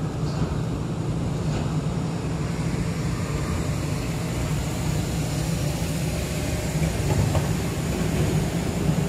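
A steady low rumble and hum with no distinct events.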